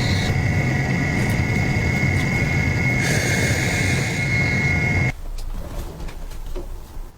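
A power tool's motor runs steadily with a high whine over a low hum, then stops abruptly about five seconds in, leaving quieter clicks and handling noise.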